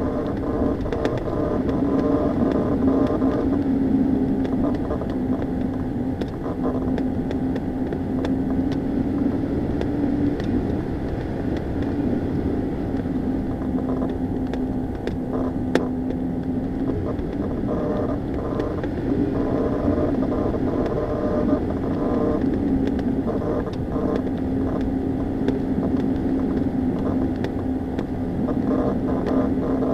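Tow plane's piston engine droning steadily over rushing airflow, heard from a glider on aerotow; the engine note wavers a little and comes and goes.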